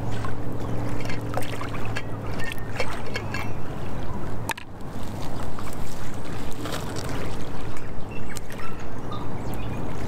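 A steady low motor-like hum over wind and outdoor noise, with scattered small clicks and knocks from a steel vacuum flask being opened and handled.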